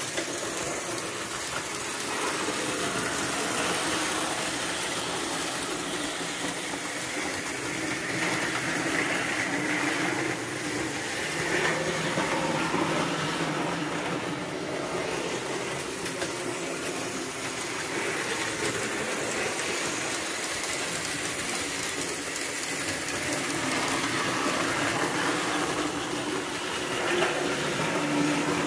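Vintage Märklin three-rail toy trains running on metal track: a steady mechanical running noise from their motors and wheels that swells and eases a little as they circle.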